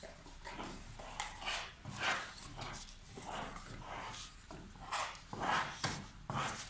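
Flat plastic spreader scraping white glue across a wooden board in repeated short strokes, about one or two a second.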